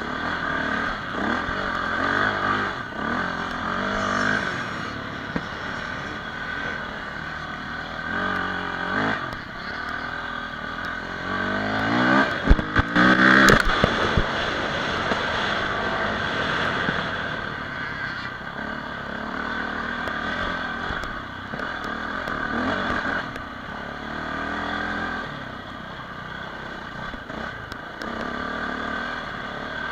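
Dirt bike engine revving up and easing off again and again as the bike is ridden hard over rough off-road ground. It is loudest in a long rising rev about halfway through, with a few sharp knocks around it.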